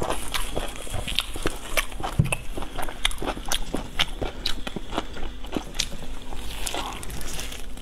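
Close-miked chewing and lip-smacking of glazed meat, a steady run of irregular wet clicks and smacks.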